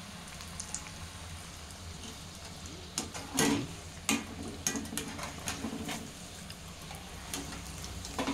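Kebabs deep-frying in hot oil, a steady sizzle. From about three seconds in, a wire skimmer clinks and scrapes against the metal kadai in a run of sharp clicks as the kebabs are scooped out.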